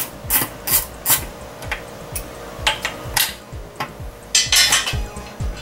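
Hand ratchet clicking and metal clinking while the bolts of a 4R70W transmission's steel oil pan are backed out: a run of sharp clicks a few a second, then a louder clatter of metal about four and a half seconds in.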